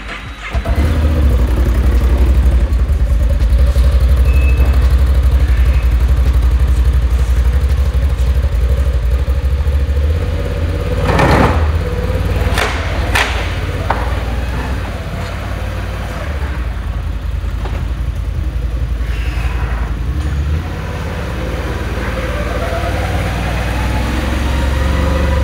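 Can-Am Outlander 1000R ATV's V-twin engine starting about half a second in, then running steadily and smoothly at low speed. There are a few sharp knocks near the middle.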